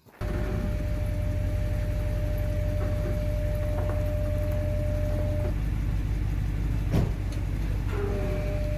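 Ram 2500 pickup's engine running steadily, with a steady high tone that stops about halfway through and comes back near the end, and one sharp knock a little later.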